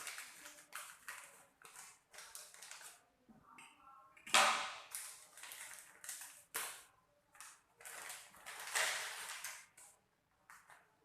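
Plastic chip packet crinkling and rustling as it is cut and opened, in a run of irregular crackles with louder bursts about four and nine seconds in.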